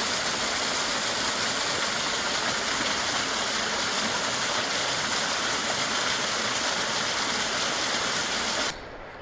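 Small waterfall pouring down over rocks into a shallow pool: a steady rush of falling water that cuts off suddenly near the end.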